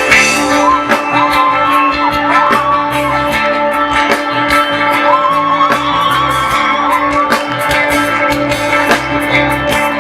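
Live band playing an instrumental passage: a plucked-string lead line with bending, wavering notes over a steady drum-kit beat and bass.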